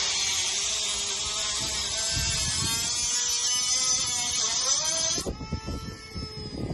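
Small high-speed electric power tool running with a hissing whine whose pitch wavers under load. It is switched off about five seconds in and winds down with a falling whine, followed by a few light knocks.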